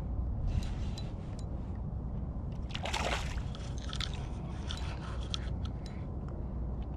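Water splashing and sloshing as a hooked river smallmouth bass thrashes at the surface near the landing net. One louder splash comes about three seconds in, followed by smaller splashes, over a steady low rumble.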